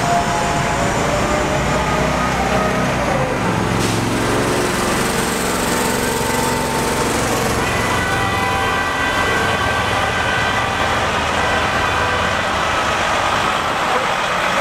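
Heavy truck diesel engine running amid steady city street traffic noise, its pitch dropping briefly about three seconds in.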